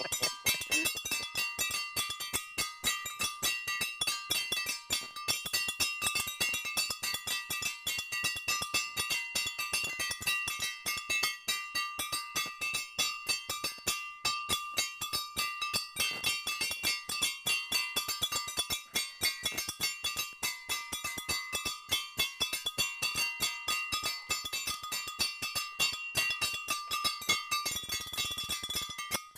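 Hand-held metal percussion, small bells struck with sticks, beaten in a fast, steady rhythm with a ringing metallic tone.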